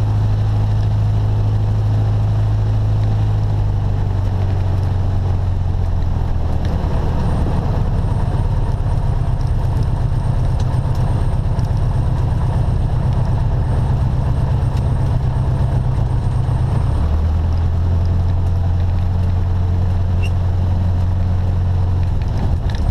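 Piston engine and propeller of a light single-engine airplane running at taxi power, heard from inside the cabin. The low engine hum steps up in pitch about six seconds in and drops back about seventeen seconds in as the power changes.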